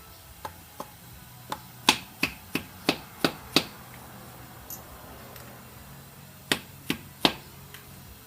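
Sharp metal taps on a 21 mm socket set over a new valve seal, driving the seal down over the valve guide until it seats. A quick run of taps, a pause, then three more near the end.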